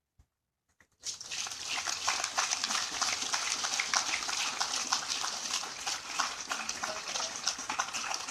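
Crowd applauding, the clapping starting suddenly about a second in and going on steadily.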